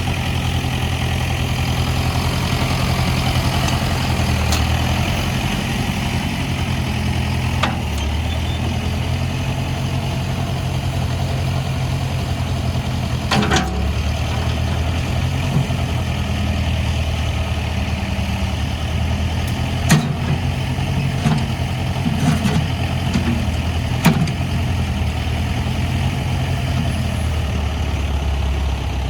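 1963 Case 530CB backhoe's engine running steadily at idle, its pitch shifting a couple of times, with a few sharp knocks in the second half.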